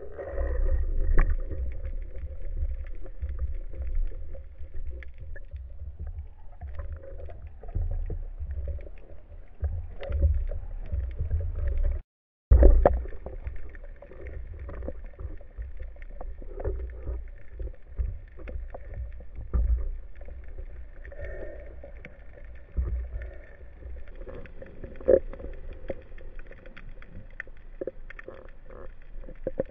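Muffled water noise heard through a waterproof camera housing during a spearfishing dive: a steady low rumble of moving water with scattered small clicks and knocks. The sound cuts out completely for a moment about twelve seconds in.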